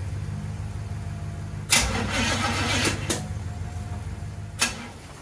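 Small-block Chevy 350 V8 in a 1936 Chevrolet coupe cranking over on the starter in the cold without catching: a steady low drone with a few sharp clicks, cut off with a click about four and a half seconds in.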